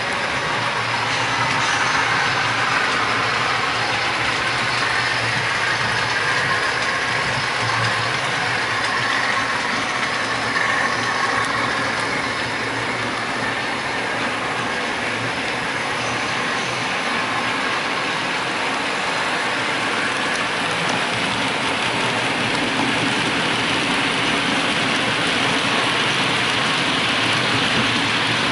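Model diesel locomotives and their wagons running on a model railway layout: a steady whirr of motors and gears with wheels rolling over the track.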